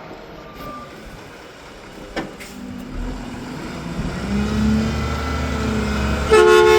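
Mack garbage truck's diesel engine revving up as the truck pulls away, after a last reverse-alarm beep under a second in. A loud, short horn blast comes near the end.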